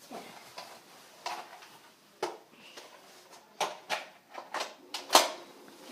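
A Nerf blaster being handled and loaded: a series of irregular plastic clicks and knocks, the loudest a little after five seconds in.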